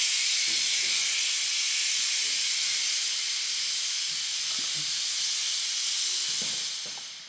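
Handy pneumatic motorcycle lift table venting compressed air as it lowers the bike: a steady hiss that starts abruptly and tapers off near the end as the lift settles.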